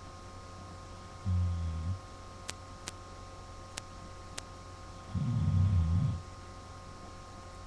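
A man snoring in his sleep. There are two low snores, one about a second in and a louder, longer, rattling one about five seconds in, with a few faint ticks between them.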